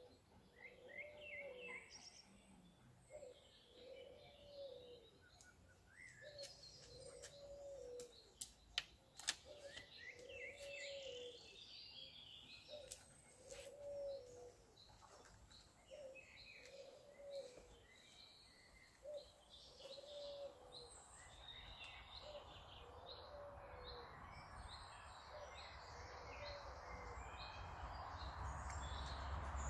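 Faint birdsong: a dove cooing over and over, about once every two seconds, with small birds chirping. Two sharp clicks about nine seconds in, from a dog-training clicker. A rushing noise grows near the end.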